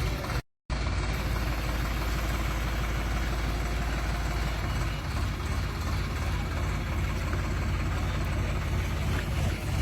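Crane's heavy engine running steadily with a deep low rumble, cut off by a brief dropout about half a second in.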